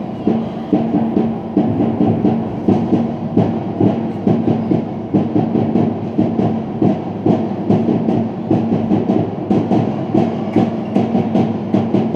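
Music with a fast, steady beat and a repeated low note, loud over the hall sound.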